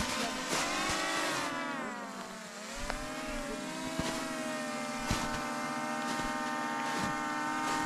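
Small quadcopter drone's propellers whining in flight. The pitch dips about two seconds in, then rises again and holds steady.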